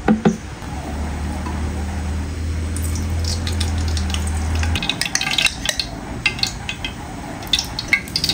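Cooking oil poured from a steel jug into a large aluminium pot, over a low steady hum that stops about halfway through. Scattered crackling follows as the oil starts to sizzle in the pot.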